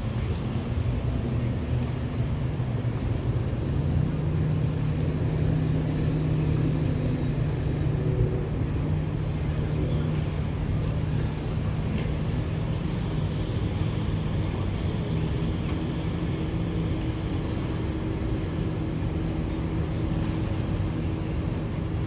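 Boat engines running out on the river, a steady low drone, with a second, higher engine tone joining about midway.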